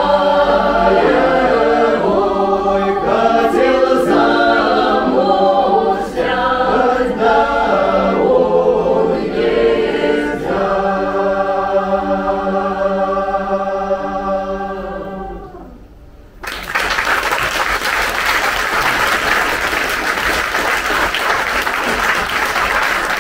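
Mixed ensemble of voices singing a Don Cossack folk song in several parts, ending on a long held chord that fades away about fifteen seconds in. After a brief pause, audience applause.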